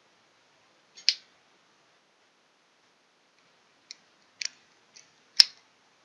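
Sharp plastic clicks as the snap-fit housing of a Vision ZL7432US in-wall Z-Wave micro switch is pried apart: a pair about a second in, then several more in the last two seconds, the loudest near the end as the cover comes off the circuit board.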